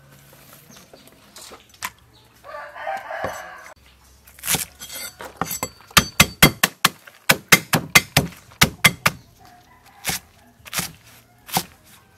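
Kitchen knife chopping water spinach stems on a wooden chopping block. A quick run of sharp strikes, about five a second, starts about six seconds in and lasts about three seconds, followed by a few single cuts near the end. A chicken calls briefly a few seconds in, before the chopping.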